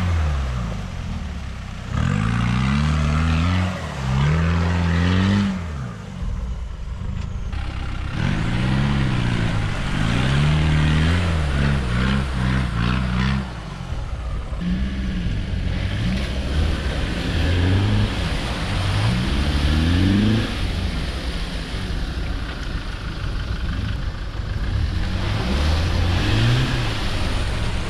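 Land Rover engines revving up and down again and again as the 4x4s churn through deep mud pools, with mud and water splashing around the wheels.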